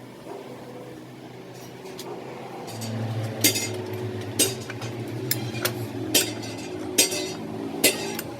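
Sharp metallic clinks and taps of tools against metal parts, about one a second. A low steady hum starts about three seconds in.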